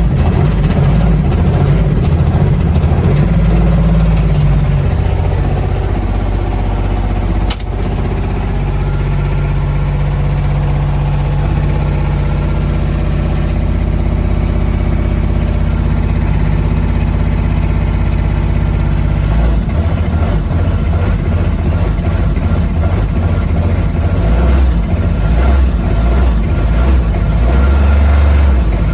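Diesel UTV engine running cold just after a hard start, not yet warm enough to idle on its own. There is a sharp click about seven and a half seconds in, and about two-thirds of the way through the running note drops lower and turns uneven.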